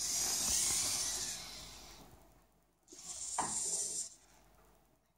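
Hobby servos of a desktop robot arm whirring as the arm moves, in two bursts: a long one that fades over about two seconds, then a shorter one about three seconds in, with a knock soon after it starts.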